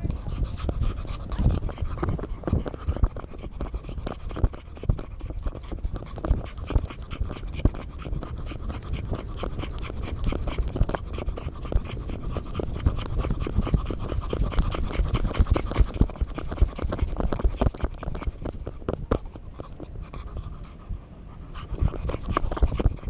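A dog panting rapidly and steadily, heard close up from a camera worn on the dog.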